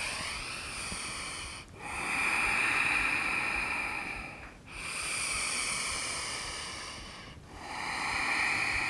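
A woman breathing slowly and deeply while holding a yoga pose. There are about three long breaths, each around three seconds, heard as an even hiss with short pauses between them.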